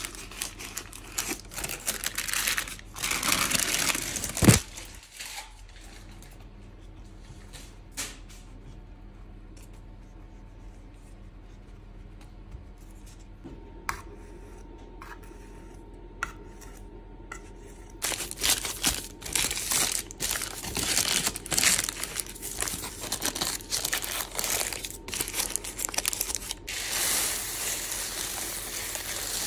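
Baking parchment crinkling and rustling as it is pressed and crumpled into a pastry-lined tart tin. It is loud for the first few seconds, quiet through a middle stretch with a few small clicks, then loud again through the second half. Near the end, dried split peas are poured onto the parchment as baking weights.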